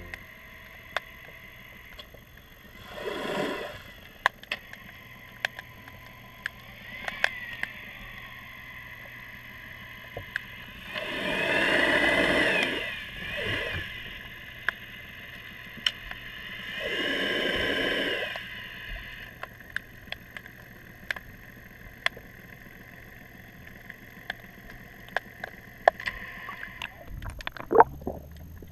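Boat engines and propellers heard underwater: the sound of passing motorboats swells and fades several times, loudest about twelve seconds in and again around seventeen seconds, with a pitch that rises and falls as each one goes by. Under it run a steady faint whine and scattered sharp clicks.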